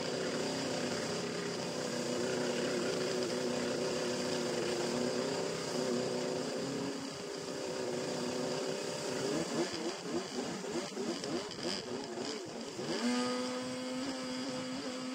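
Stand-up jet ski's Group K 850cc two-stroke Kawasaki SXR engine running at speed, over a rush of water and spray noise. About seven seconds in, the revs start rising and falling quickly. Near the end they settle to a steady, slightly higher note.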